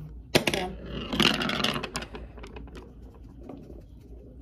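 Makeup brush and eyeshadow palette being handled: a sharp click about a third of a second in, then about a second of scratchy rubbing as the brush is worked against the palette, followed by small taps and handling noises.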